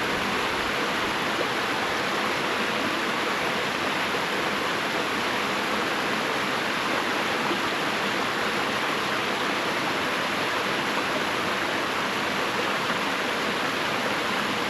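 Rushing water running as a steady, even hiss that does not change.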